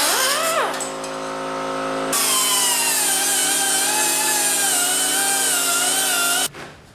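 High-speed power cutting tool whining as it cuts rusted sheet steel out of a tractor hood. Its pitch sags under load in the first second, then holds as a steady, slightly wavering whine until it stops abruptly near the end.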